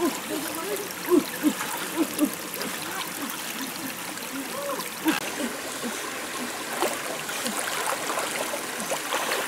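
Shallow stream running over rocks, with gurgling and several sharp splashes as hands sweep and grope through the water.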